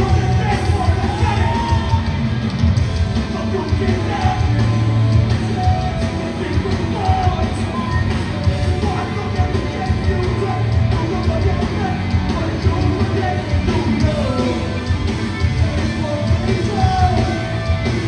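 Hardcore band playing loud rock music live, with yelled and sung vocals over distorted guitars.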